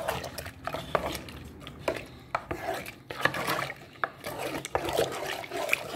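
Wooden spoon stirring hominy kernels in milk in a pot, scraping the bottom and sides with irregular knocks against the pan.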